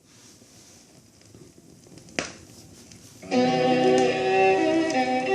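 Vinyl LP playing: faint surface hiss in the lead-in groove with a sharp pop about two seconds in, then the song's instrumental intro starts suddenly near the end, with sustained string notes.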